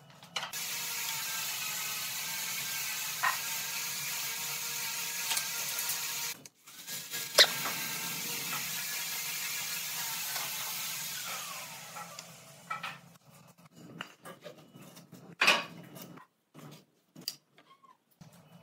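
A steady mechanical hiss, like a power tool running in the workshop, fills the first twelve seconds with a brief break about halfway, then fades out. After that come scattered knocks and taps of wooden boards and a pen handled on a wooden workbench.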